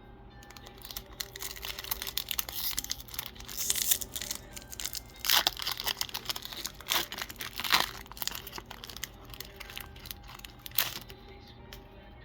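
Foil Pokémon booster pack wrapper crinkling and tearing as it is handled and opened, with several sharp louder crackles in the middle and one near the end.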